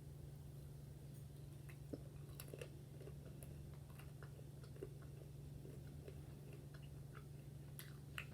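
Close-miked chewing of fried chicken: scattered crisp crunches and wet mouth clicks, sharpest about two seconds in and near the end, over a steady low hum.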